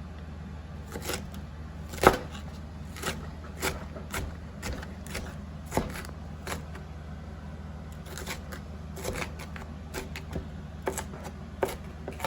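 Knife chopping food on a cutting board in uneven, irregular strokes.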